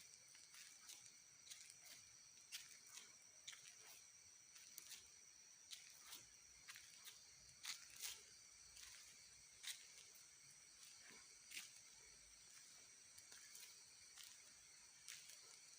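Faint night insects chirring in a steady high tone, with scattered soft clicks and rustles at irregular intervals.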